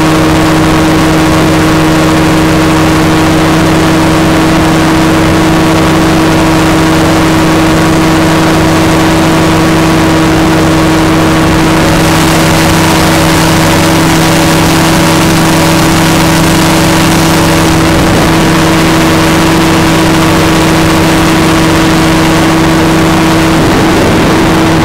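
Aircraft engine droning steadily at constant pitch, heard from inside the cabin in cruising flight, with a rushing hiss that grows brighter for several seconds around the middle.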